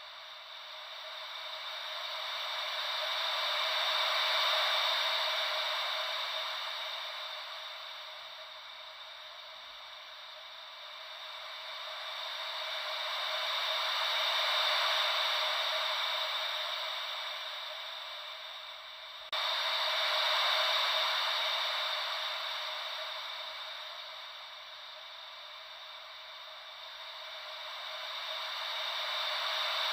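Ocean-wave white noise: a steady hiss that swells and fades slowly, about every ten seconds, like waves rolling in. About two-thirds of the way through the level jumps up suddenly.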